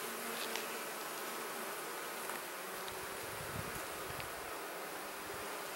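A honeybee colony buzzing steadily over an open hive, the bees stirred up by the inspection. A few faint clicks are heard among the buzz.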